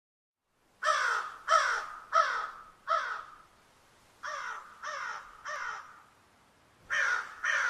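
Crows cawing in three series: four loud harsh caws about a second in, then three softer ones, then two more near the end. Each caw falls in pitch.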